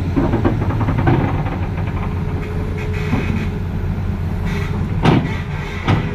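Heavy diesel machinery engine running steadily, with a couple of sharp metallic clanks about five and six seconds in.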